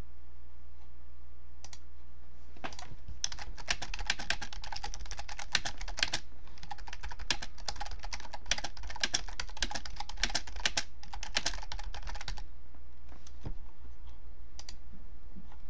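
Fast typing on a computer keyboard, a burst of rapid key clicks about three seconds in that runs for roughly nine seconds with a brief pause in the middle, then a few scattered single key presses. A steady low hum runs underneath.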